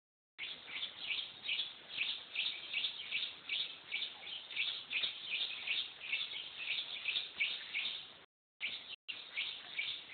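Birds chirping, a steady stream of short high chirps several a second. The sound cuts out briefly twice near the end.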